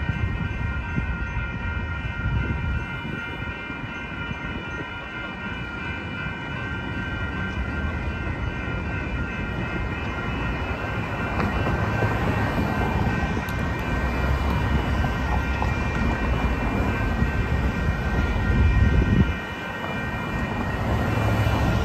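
Railroad crossing warning bells ringing steadily over the rumble of cars and a pickup truck driving across the crossing. The traffic rumble builds to its loudest a little before the end, then drops off suddenly.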